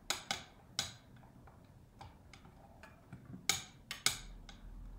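Sharp clicks and taps of the small box's lid being handled and moved, a few in the first second and a louder cluster of clicks about three and a half to four seconds in.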